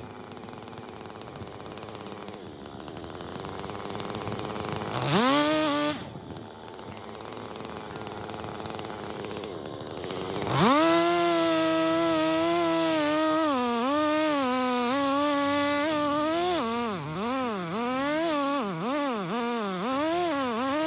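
Jonsered CS2255 two-stroke chainsaw running. It revs up briefly about five seconds in, then from about ten seconds in is held at high revs, with the pitch sagging and recovering again and again in the later seconds as the cut loads the engine. It drops off at the end.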